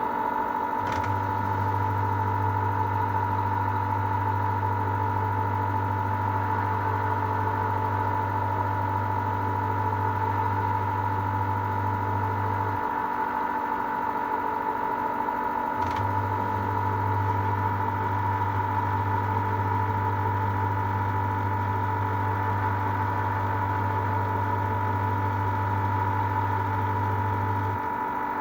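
LG F1296CDP3 washer-dryer running with a steady whine. Its drum motor hums low in two spells of about twelve seconds each, each starting with a click, with a pause of about three seconds between them as the drum stops and turns again.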